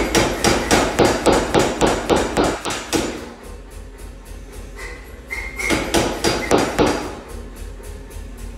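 Power forging hammer striking a red-hot steel bar on its anvil in rapid blows, about five a second, for about three seconds; after a short lull it strikes a second run of blows, then stops, leaving a steady low hum from the machine.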